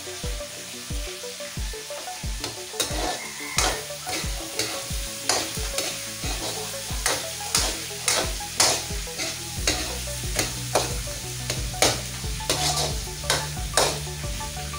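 Pancit stir-fry sizzling in a pan while a spatula is stirred and tossed through it, scraping and knocking against the pan about twice a second, busier after the first few seconds.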